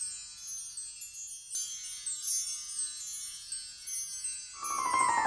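Intro music of shimmering, high chime tones like wind chimes. About four and a half seconds in, a falling tone sweeps down and the music grows louder.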